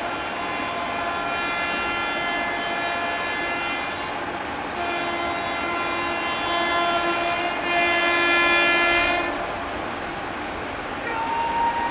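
WAP-7 electric locomotive's multi-tone horn sounding two long blasts, a short break between them, the second growing louder toward its end. After it the train's running noise carries on, and a steady high tone starts near the end.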